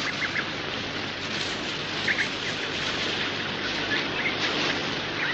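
Birds chirping, short calls every second or so, over a steady rushing hiss of outdoor ambience.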